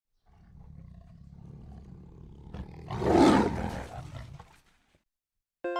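A large animal roaring: a low growl builds for a few seconds, then one loud roar about three seconds in, which fades out over about a second.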